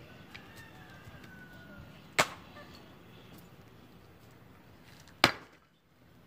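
Two sharp axe blows into almond-wood logs being split, about three seconds apart.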